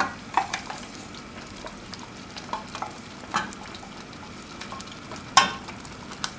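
Wooden spatula stirring dal in a stainless steel pot, with a few sharp knocks and scrapes of the spatula against the metal, the loudest at the very start and about five seconds in. Under it a faint steady sizzle as the hot garlic and mustard-seed butter is stirred into the dal.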